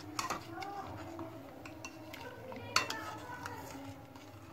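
Metal spoon scraping and clinking against a kadhai while stirring milk as it boils down and thickens. The clinks are irregular, with the loudest one nearly three seconds in.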